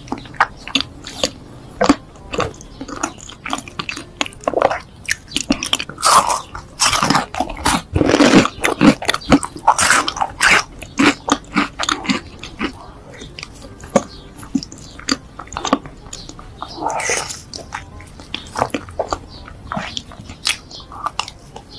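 Close-miked eating: biting and chewing chocolate-frosted cake topped with Ferrero Rocher, a dense run of short mouth clicks and smacks, loudest around the middle.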